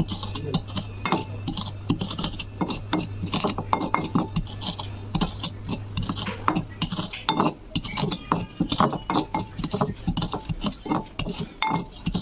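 A metal rod pounds and mashes water-soaked dog biscuits against the bottom of a terracotta bowl. It makes a quick, uneven run of knocks and gritty clicks, about three a second.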